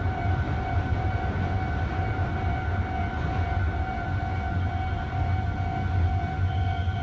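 Steady electronic warning tones from a railway crossing alarm, sounding over the low rumble of an approaching electric train; a higher tone joins near the end.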